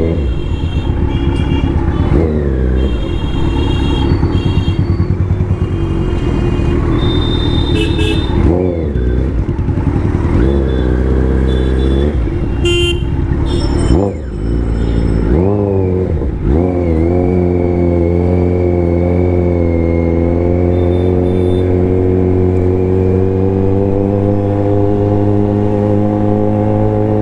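Kawasaki Z900's inline-four engine under way, its note dipping and swinging back up several times in the first half with throttle changes, then climbing slowly and steadily through a long pull. Vehicle horns honk briefly in the first half.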